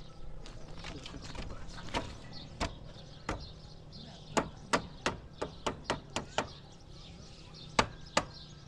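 Sharp knocks of hand tools striking during hut construction: a few spaced blows, then a quick run of about eight in the middle and two more near the end.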